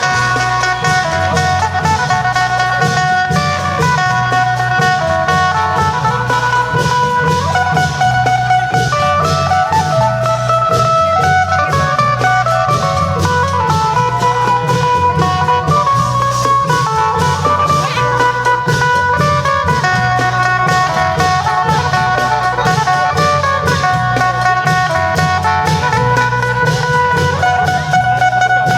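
Isan phin (plucked lute) playing a running melody over a steady beat of klong yao long drums, continuous and loud throughout.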